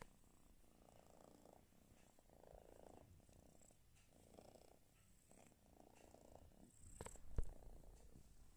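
Domestic tabby cat purring softly while being stroked, the purr swelling and fading with each breath. A couple of sharp knocks near the end, the loudest sounds here.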